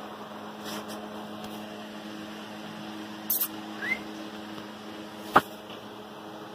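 Steady low electrical hum, with a short scrape a little past three seconds in, then a brief rising puppy squeak, and a single sharp knock, the loudest sound, about five seconds in.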